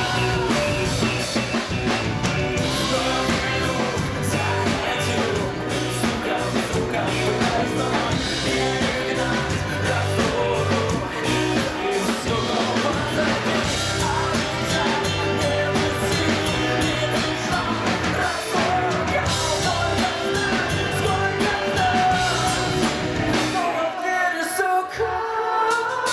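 Rock band playing live, with drums, bass and guitar under a singing voice; the bass and drums drop out briefly near the end.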